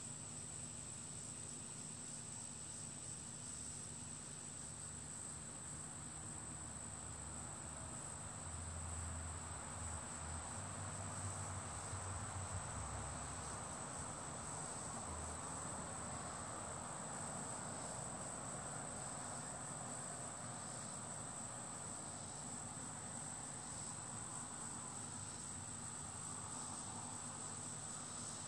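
Crickets chirring in one steady, unbroken high-pitched tone, with a soft rushing noise that swells and fades about a third of the way in.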